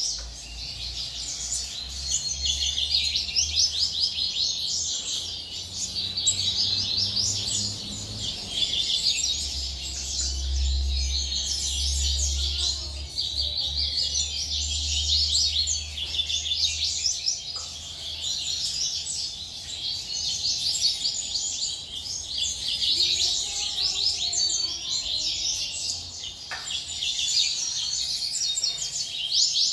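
Many small caged birds chirping and twittering at once in a dense, continuous chorus. A low rumble runs underneath during the first half or so.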